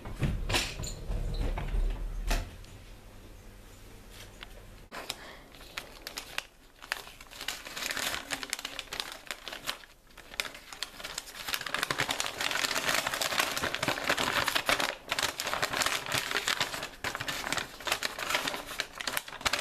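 A folded sheet of paper being unfolded by hand, crinkling and rustling, denser in the second half. A low rumble with a few knocks comes before it in the first couple of seconds.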